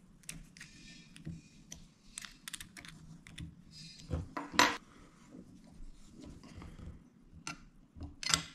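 Small clicks and taps of hands handling a guided knife sharpener's magnetic holder and its adjustable plate, with one sharper knock about halfway through. Near the end, a quick cluster of clicks as a chef's knife is set against the holder.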